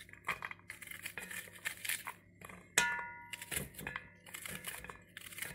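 A knife slicing through a raw onion held in the hand: a string of short crisp crunching cuts, with the pieces dropping into a metal pot. A little under halfway through, a sharp metallic clink rings on briefly, the loudest sound.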